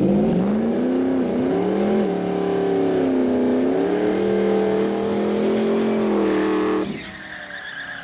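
V8 cars (a Cadillac CTS-V and a Ford Lightning) accelerating hard down a drag strip at full throttle, the engine note climbing through each gear and dipping at the upshifts about three times. The engine sound drops off sharply near the end.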